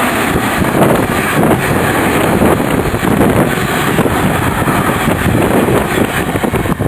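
Open box wagons of a freight train running through close by: a loud, steady rumble and rush of wheels on rail, fluttering irregularly as the wagons go by.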